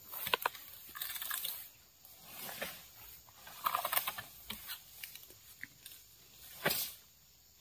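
Irregular rustling and crackling of a cut oil palm frond being lifted and dragged through dry fallen fronds and undergrowth, with scattered snaps of leaves and stems. A single sharp thump near the end is the loudest sound.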